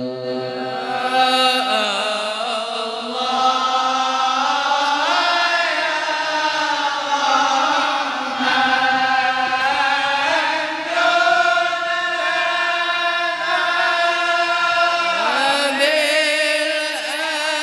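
A large group of men chanting an Arabic devotional dhikr together in unison. They hold long notes that slide from one pitch to the next, with the melody shifting every few seconds.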